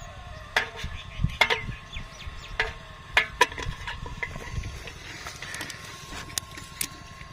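Cast net being handled over a metal bucket while the catch is picked out: scattered sharp clicks and taps at uneven times, with some rustling of the wet mesh.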